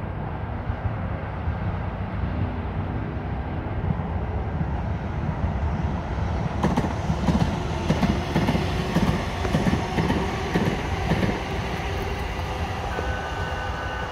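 San Diego Trolley light-rail train passing close by. Its rumble builds, and the wheels clack over the rail joints about twice a second, loudest in the middle, before the sound eases off.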